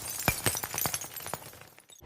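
Tail of a glass-shattering sound effect: scattered clinks and tinkles of falling shards that thin out and die away near the end.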